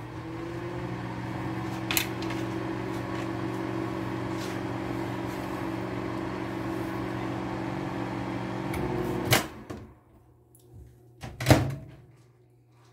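Microwave oven running with a steady hum, then stopping about nine seconds in, followed by two sharp clicks.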